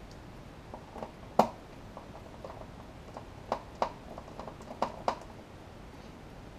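Sharp clicks and knocks of a small screwdriver and hands against the metal chassis of a rack-mount preamp being worked on: one loud knock about a second and a half in, then a cluster of smaller taps between three and a half and five seconds.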